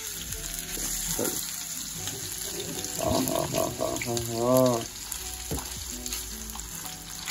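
Fish pieces shallow-frying in hot oil in a pan, with a steady sizzle. A few light knocks come as the pieces are turned with tongs.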